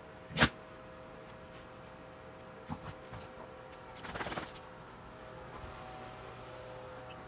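A sharp knock about half a second in, two light taps a couple of seconds later, then a brief rattle of quick clicks around four seconds in, over a faint steady hum.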